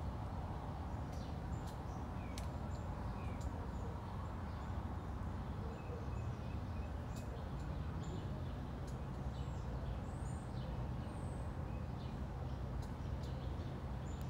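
Small birds chirping and calling, short scattered notes over a steady low background rumble.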